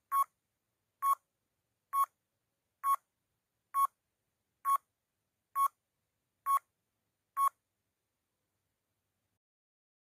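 Countdown timer sound effect: nine short, identical beeping ticks, evenly spaced just under a second apart, counting down the seconds.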